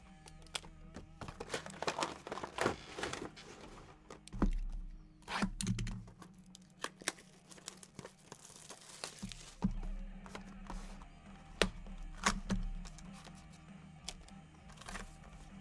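Sealed trading-card boxes being unwrapped and handled: plastic wrap and packaging tearing and crinkling, with scattered knocks as the cardboard boxes are picked up and set down on the desk.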